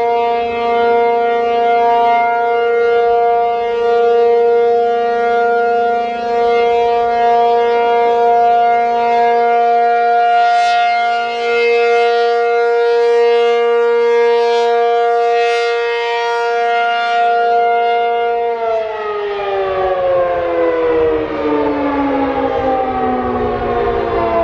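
ACA P-50 rotating electromechanical outdoor warning siren holding a steady alert tone, its loudness swelling and dipping slightly. About three-quarters of the way through it shuts off and winds down, the pitch falling steadily: the end of a three-minute full alert, run because the siren ignored its cancel tones.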